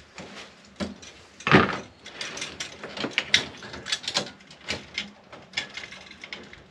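Pliers working electrical wires in a wall switch box: a quick run of irregular clicks, snips and metal scrapes, the loudest about a second and a half in.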